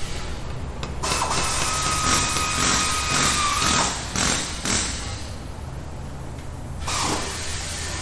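Car repair workshop sounds over a steady low hum: a tool hissing with a steady whine for about three seconds, then a few short metallic clanks, and another short hiss with a falling whine near the end.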